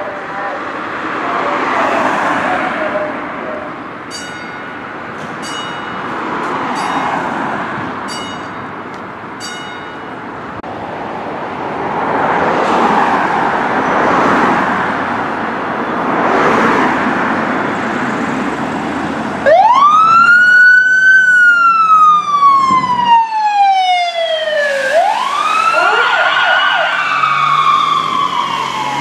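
Fire department emergency vehicle's siren wailing, starting suddenly and loudly about two-thirds of the way in. Its pitch rises, falls slowly, then rises and falls again. Before it, vehicle noise swells and fades, with a run of short, high beeps about once a second a few seconds in.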